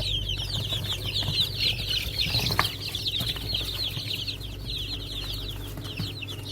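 A brooder full of four- to five-day-old chicks peeping continuously: a dense chorus of short, high cheeps, each falling in pitch, over a low steady hum.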